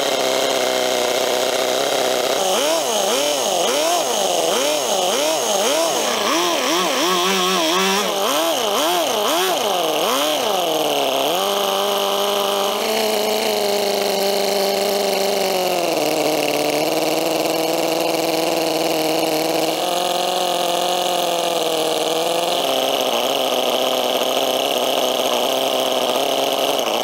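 Toyan FS-L400 14 cc four-cylinder four-stroke nitro model engine running. It is blipped up and down about once a second for several seconds, then held at steady speeds that drop and rise in a few steps.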